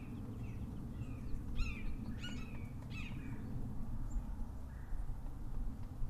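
A bird gives a few short chirping call notes, three or four between about a second and a half and three and a half seconds in, over a steady low rumble of outdoor background noise.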